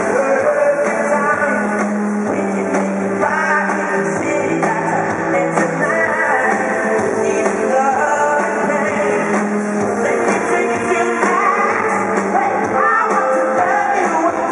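Live pop music with singing over a full band, played through an arena sound system and recorded from among the audience.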